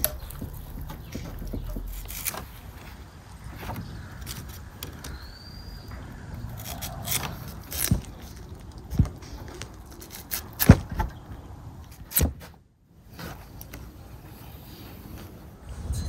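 Steel skewers being worked through raw lamb ribs and potatoes on a wooden board: scattered metal clinks, knocks and scrapes, the sharpest about eleven seconds in.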